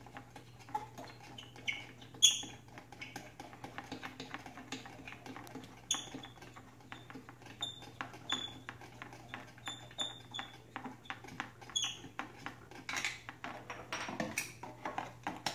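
Hands working a GoPro Hero 4 Silver camera free of its plastic packaging case: a run of small plastic clicks and taps, with short high chirps every second or two, the loudest about two seconds in.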